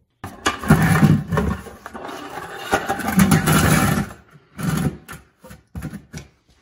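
A plastic bucket scraped and dragged across a concrete floor: one long scrape of about four seconds, then several short scrapes and bumps.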